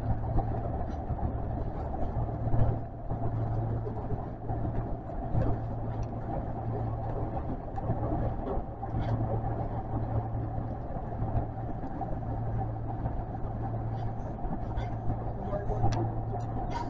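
Osaka Metro 400 series subway train running at speed through a tunnel, heard from inside the front car: a steady running rumble and hum with faint clicks here and there.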